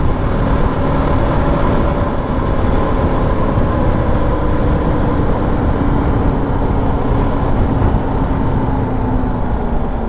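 Motorcycle engine running at a steady cruise, with a few faint steady tones, under heavy wind rush on the microphone while riding.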